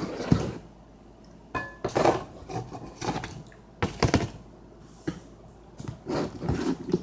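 An eating utensil clinking and scraping against a dish of macaroni and cheese: several short knocks spread out, one ringing briefly.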